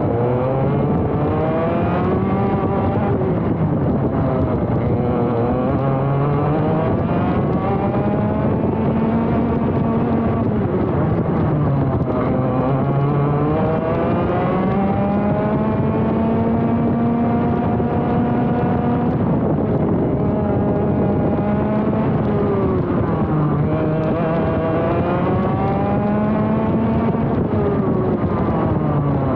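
Vortex ROK GP Junior 125cc two-stroke kart engine at racing speed, its pitch climbing as it accelerates out of corners and dropping sharply into the braking zones, several times over. The longest climb near the middle holds high for several seconds on a straight.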